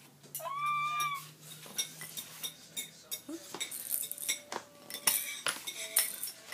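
A baby gives a short, high-pitched squeal about half a second in. After it comes a string of light, irregular clicks and clinks that runs to the end.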